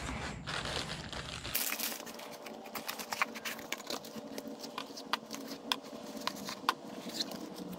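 Light handling noises: scattered irregular clicks and crinkling as small objects are moved about by hand, with a low rumble in the first second or so.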